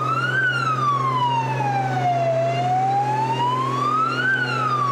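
Police vehicle siren in a slow wail, its pitch rising and falling about once every four seconds, over a steady low hum.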